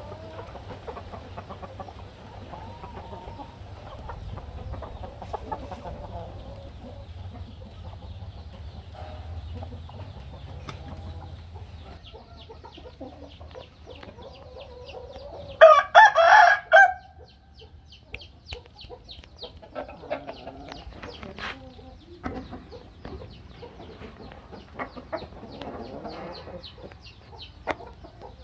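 Roosters and hens clucking softly, with one rooster crowing loudly for a little over a second about halfway through.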